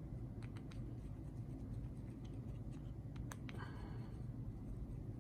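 Faint clicks and scraping of a screwdriver working at one of the small screws that hold a grinder's bearing hub, with a brief squeak about three and a half seconds in, over a low steady hum.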